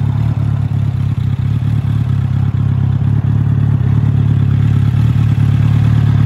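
Motorcycle engine idling steadily, a low even hum.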